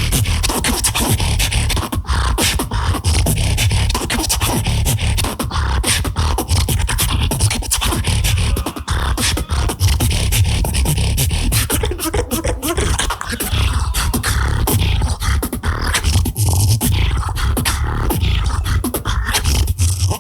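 Beatboxing into a microphone, a continuous rhythmic vocal-percussion routine with heavy bass kicks and sharp snare-like clicks and hisses.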